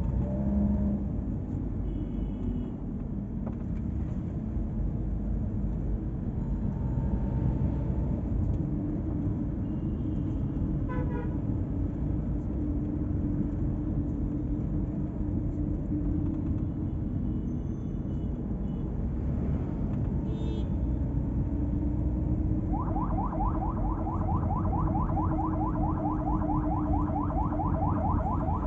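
Steady engine and tyre noise inside the cabin of a moving 2007 Toyota Allion. A couple of brief horn toots come from traffic. Near the end, a fast-repeating warbling electronic tone like a car alarm starts up and keeps going.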